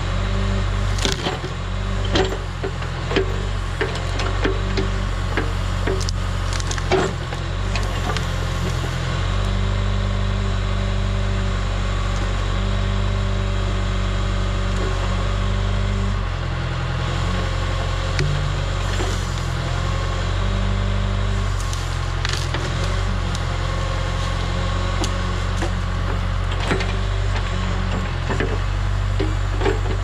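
John Deere 410B backhoe's diesel engine running steadily, its note shifting a few times. The Wain-Roy jaw bucket works through brush with repeated sharp snaps and cracks of branches.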